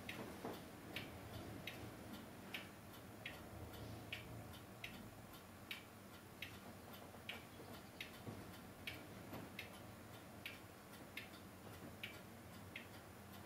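Faint, regular ticking, about four ticks every three seconds in a slightly uneven tick-tock rhythm, over a low hum.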